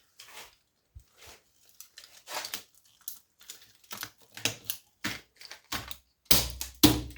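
Irregular sharp clicks and taps as an old CRT TV deflection yoke is tapped and broken apart to free its copper windings, with a few heavier knocks near the end.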